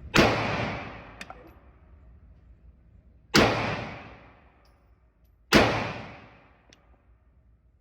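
Three gunshots fired slowly, a few seconds apart, each with a long echo trailing off.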